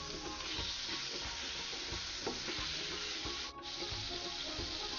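Margarine melting and sizzling in a hot non-stick wok, with a wooden spatula stirring and scraping it around the pan.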